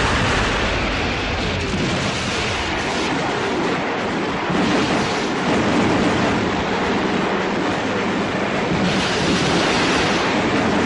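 Continuous heavy rushing roar of a multiple-rocket-launcher and artillery barrage, dense and unbroken, with no single bang standing out.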